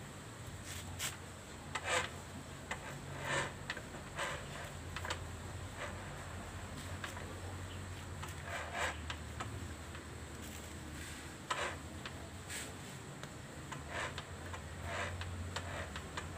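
Hand-held abrasive block rubbing the steel magneto flywheel rotor of a Suzuki Shogun, making short irregular rasping scrapes about once a second as the rotor's pickup (pulser trigger) bump is reshaped.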